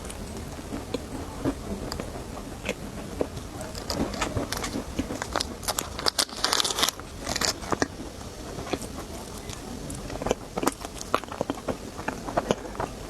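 Close-miked crunching as a crisp snack is bitten and chewed: irregular sharp crackles, with a denser crackling burst about six and a half seconds in.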